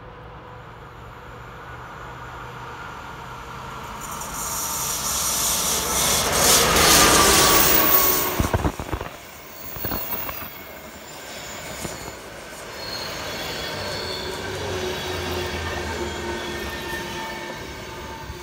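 Locomotive-hauled passenger express arriving. It is faint at first and grows loud as the locomotive passes about six to eight seconds in. A quick run of sharp wheel clacks over the rail joints follows, then the coaches roll by with steady wheel and brake squeal as the train slows into the station.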